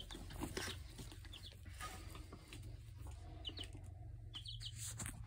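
Young chicks peeping faintly, a few short high cheeps scattered through, over a low steady hum.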